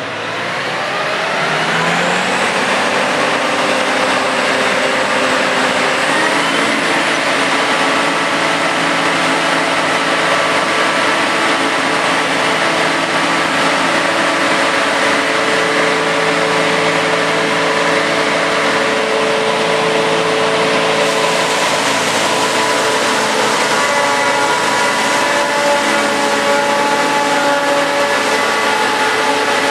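Claas Jaguar 960 self-propelled forage harvester running at full working speed while chopping whole-crop cereal. Its whine rises in pitch over the first couple of seconds, then holds as a loud, steady machine drone with several held tones.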